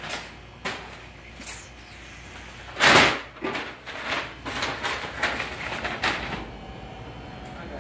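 Kitchen clatter from behind a serving counter: separate knocks and clicks of dishes, pans and utensils being handled, the loudest a sharp bang about three seconds in, then a quicker run of smaller clinks and knocks.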